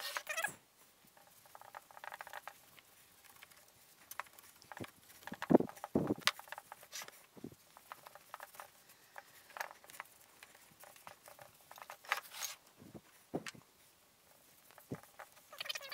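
Cloth rag rubbing wax into a wooden chair frame: irregular rustling and scuffing, with two louder knocks about five and six seconds in.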